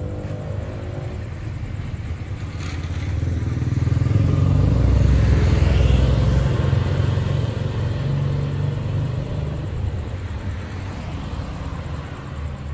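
Street traffic: a car passes close by, its engine and tyre rumble swelling to a peak about five to six seconds in and then fading away, over a steady background of traffic.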